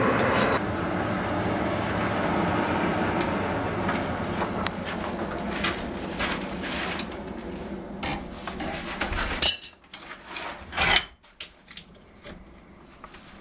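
Forge blower running with a steady rush that slowly dies away as the iron is heated for the twist, followed by two sharp clanks of metal near the end.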